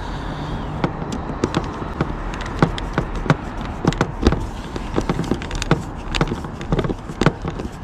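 Irregular clicks and small taps of a hand screwdriver driving a self-tapping screw through a plastic cable-entry gland into a van's steel roof, about two or three clicks a second.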